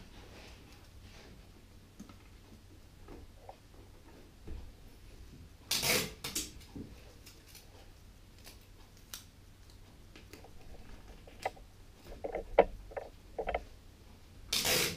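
Sticky tape and boxboard being handled: two short rips of tape pulled off the roll, about six seconds in and near the end, with small clicks, rustles and a few short squeaks of card and tape in between.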